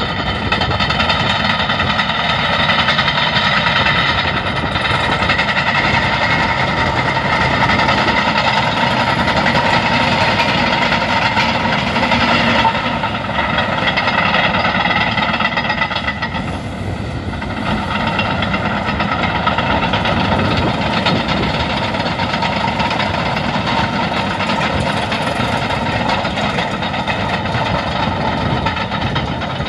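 Caterpillar crawler bulldozer's diesel engine running steadily under load as it works sand, with the clatter of its steel tracks; the sound eases briefly just past halfway.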